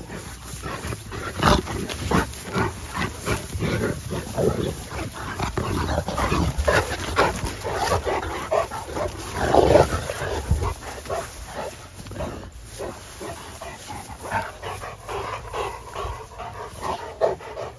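Cane Corsos and a pit bull play-fighting on pine straw: a rapid, irregular run of short dog vocal sounds and scuffling, loudest about ten seconds in.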